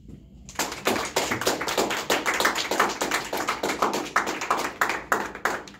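A small group of people applauding, many overlapping hand claps starting about half a second in.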